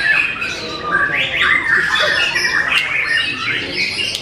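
White-rumped shamas (murai batu) singing in cages, several birds at once in a dense, continuous chorus of overlapping song phrases.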